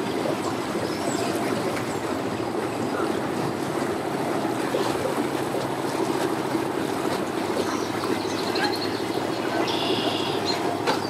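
Mercury outboard motor on a pontoon boat running steadily at low speed while the boat manoeuvres, with propeller wash churning the water.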